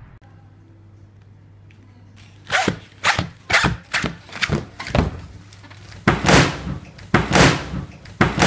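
Heavy black tactical boots thudding and stamping on a shop counter, about ten irregular knocks, some in quick pairs, starting a couple of seconds in after a faint room hum.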